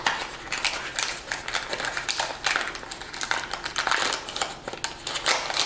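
A small cardboard box of cornbread mix being torn open by hand: a dense run of quick crackles and clicks of cardboard and paper tearing and crinkling.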